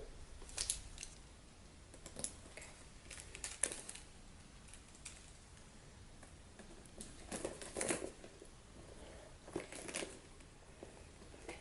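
Hands handling things at a table: a few scattered soft rustles and light clicks, with quiet stretches between them.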